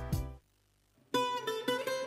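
Background music: one piece cuts off shortly after the start, and after about half a second of silence a new piece of plucked-string music begins, with quick picked notes.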